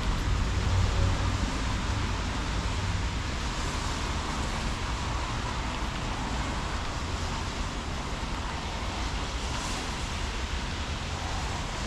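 Steady outdoor street ambience: a constant wash of distant road traffic with a low rumble, heaviest in the first couple of seconds, mixed with wind noise.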